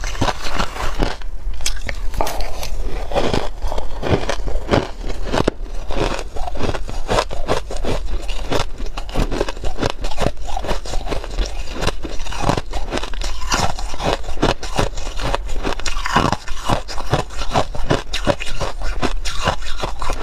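Ice being crunched and chewed up close through a clip-on microphone: a continuous run of many sharp, crackly crunches a second, with a metal spoon scraping through shaved ice.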